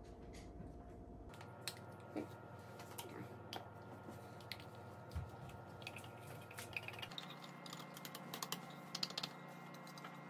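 Faint scattered clicks and light taps of a small spatula against a plastic bottle as sulfur powder is measured out, coming more often near the end, over a low steady hum.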